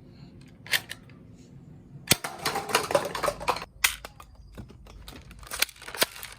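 Plastic toy guns being handled: scattered sharp clicks, with a dense rattling clatter about two seconds in that lasts a second or so.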